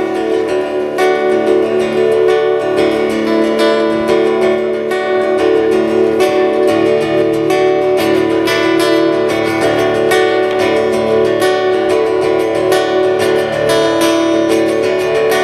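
Acoustic guitar strummed in a steady rhythm, playing the instrumental introduction to a song.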